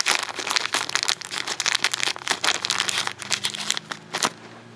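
A small plastic parts bag crinkling and rustling as it is handled and opened by hand, in dense irregular crackles that stop about four seconds in.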